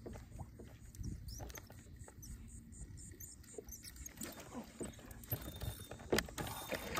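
Small birds chirping in a saltmarsh over low wind and water noise, with scattered small clicks and a sharp knock about six seconds in.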